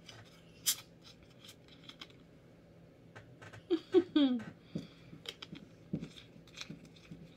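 Plastic drink bottle being opened, with a sharp click of the cap under a second in, then a few swallowing sounds as she drinks about four seconds in, followed by small clicks of the cap being handled.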